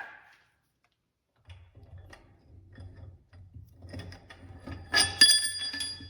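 Hands working on Dana 70 axle parts: light clicks and rubbing, then about five seconds in two sharp metal clanks that ring on with a bell-like tone.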